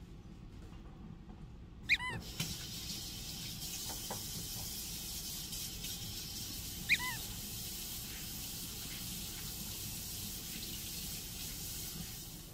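Water running steadily from a kitchen tap, with a Samoyed dog giving two short, high whines over it, about two seconds in and again about five seconds later.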